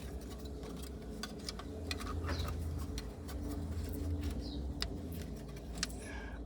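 Faint outdoor bird chirps, a few short high calls, over a low steady hum, with scattered small clicks and taps from handling.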